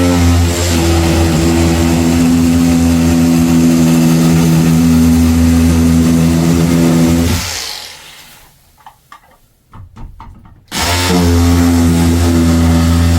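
Powered drywall cutter with an adjustable-depth blade running steadily as it cuts through a drywall ceiling. About three-quarters of the way through it winds down and stops, a few light knocks follow, and it starts up again near the end.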